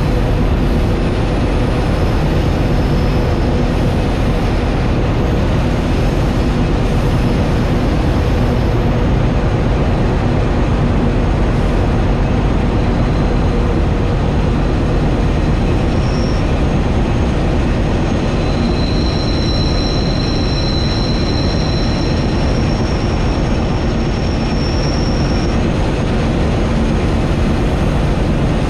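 Steady, loud running noise of coupled diesel-electric locomotives hauling a loaded coal train, heard close up on the locomotive's outside: engine drone mixed with wheel and rail rumble. For several seconds about halfway through, a high steady squeal rides over it, typical of wheel flanges on a curve.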